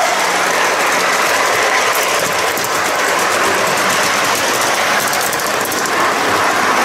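Tinplate model train running on three-rail track, heard up close from its last wagon: a steady metallic rolling clatter of wheels on the rails, with runs of fine clicks about two and a half and five seconds in.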